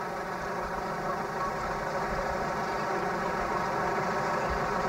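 Fishing boat's engine idling steadily, with a constant even hum.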